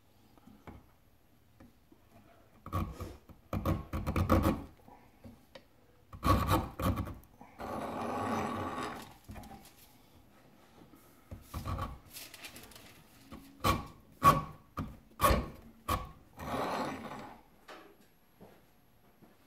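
Checkering file cutting thumb jimping grooves into the steel spine of a knife blade clamped in a vise: several groups of quick file strokes, with short pauses between them.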